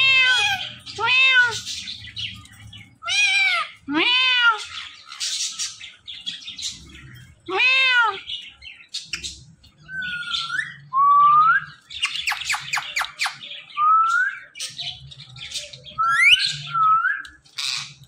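Indian ringneck parrots calling. First comes a string of rise-and-fall calls. About halfway through, the calls change to short rising whistles and squawks, with a quick rattling chatter in the middle.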